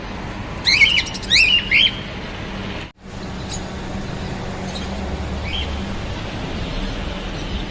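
Birds calling: a quick cluster of short, rising chirps about a second in, then a few fainter calls later over a steady low background hum.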